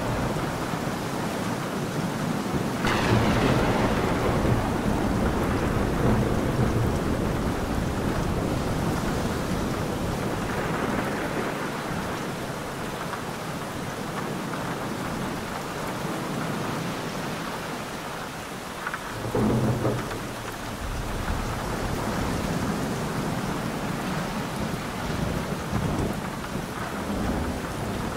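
Steady rain with thunder: a clap about three seconds in that rolls on for a few seconds, and a shorter one about two-thirds of the way through.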